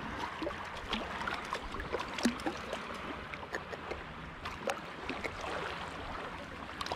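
Shallow saltwater lapping around the feet at the shoreline, with scattered small splashes and ticks throughout.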